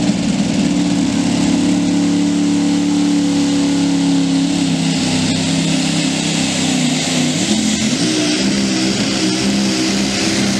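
Engine of a super modified two-wheel-drive pulling truck running steadily, then revving up with a rising pitch about eight seconds in as the truck starts pulling the sled.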